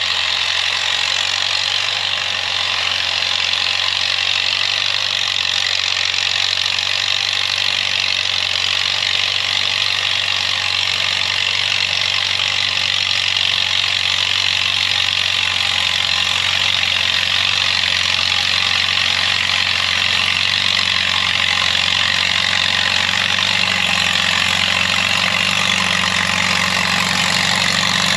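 Crawler tractor engine running steadily under load, with a dense rushing hiss over its low hum; the low note grows a little stronger near the end.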